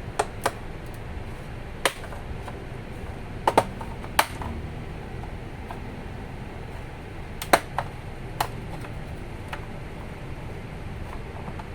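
Plastic snap-fit clips of a laptop's case clicking loose as the case is pried open: about nine sharp clicks at uneven intervals, some in quick pairs, over a steady low background noise.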